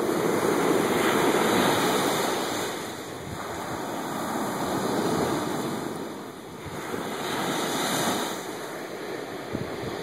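Small Atlantic surf breaking and washing up a sand beach, the rush of water swelling and easing about three times, loudest in the first couple of seconds.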